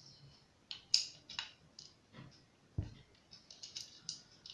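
Metal-on-metal clicks and light scraping from a black-powder percussion revolver being taken apart: the loading lever is lowered, the cylinder pin is drawn forward and the cylinder is slid out of the frame. The clicks are scattered and faint, with one duller knock near the middle.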